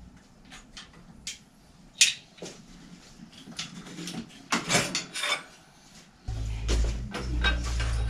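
Clicks, knocks and clatter of bicycle parts and tools being handled while the handlebar and brake lever are fitted on a bike in a repair stand, with the sharpest knock about two seconds in. A steady low rumble sets in a little after six seconds.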